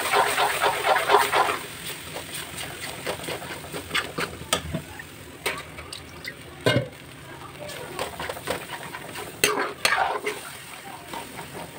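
Water poured into a hot iron kadhai of roasted flour and ghee, sizzling for the first second and a half. Then a steel spoon stirs and scrapes against the pan in scattered clicks and scrapes.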